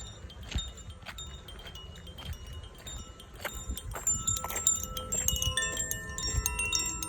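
Koshi Aria chime ringing: scattered light tinkling strikes at first, growing denser from about halfway in, with several clear tones overlapping and ringing on.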